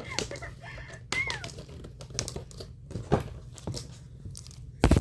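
Toy packaging being handled: crinkling and scattered clicks and knocks, with a short falling squeak about a second in and a loud knock near the end.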